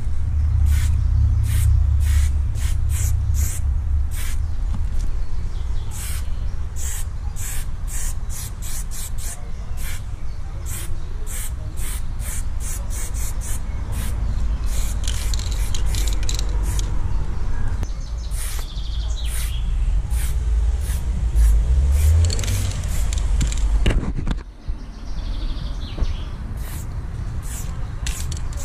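Aerosol spray paint can hissing in many short bursts, one or two a second, as graffiti lines are sprayed onto a wall, over a steady low rumble.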